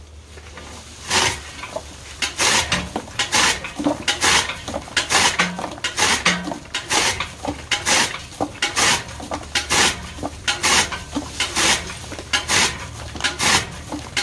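Hand-cranked chaff cutter (kutti machine) chopping green fodder: the flywheel's blades slice through the stalks in a steady rhythm of sharp chops, about two a second, starting about a second in.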